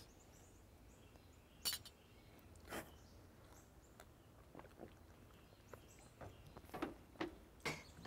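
Near silence with a few faint clicks and taps: stemmed glasses handled and set down on a table.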